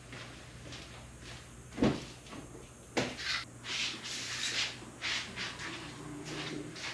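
Sharp knocks and bumps of things being handled, like a cupboard or door being shut: one knock nearly two seconds in and another at three seconds, followed by rustling, over a faint steady low hum.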